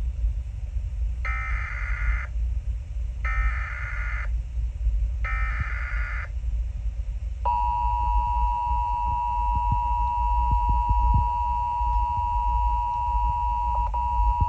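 Emergency Alert System tornado warning: three short bursts of screechy data tones about a second apart (the SAME header that encodes the alert), then a steady, loud attention tone that starts about halfway through and holds. This signals that a spoken warning message is about to follow.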